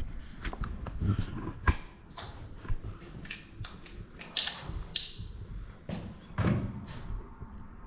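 Handling and climbing noises: an irregular run of knocks, clicks and thumps, with two brighter scraping sounds about halfway through.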